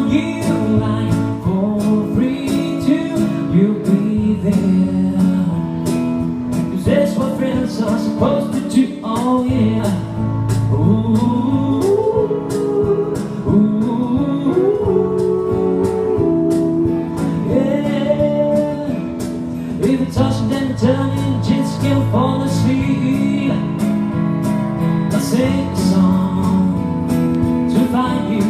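A live acoustic band plays: male vocals sing over strummed acoustic guitar and keyboard chords, with a steady beat tapped on a cajon.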